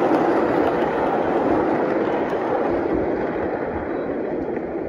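Wheels of a miniature railway train's passenger carriages rolling along the track as the last carriages pass, a steady rumble that slowly fades as the train moves away.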